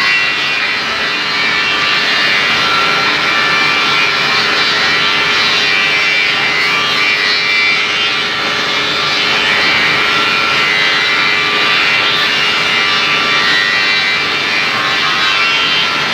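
A machine running steadily: a loud, even whirring hiss with a few faint high whines over it.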